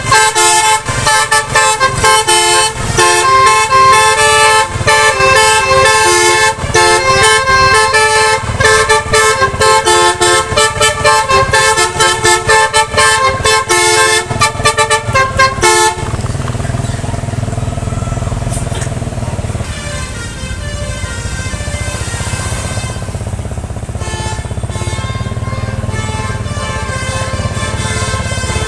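Basuri musical air horn on a bus playing a fast melody of stepped notes. After about sixteen seconds it stops, and a bus engine and road noise carry on with faint horn tones.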